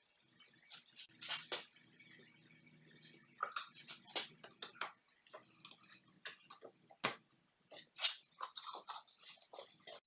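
Irregular sharp clicks and knocks, unevenly spaced, over a faint low hum.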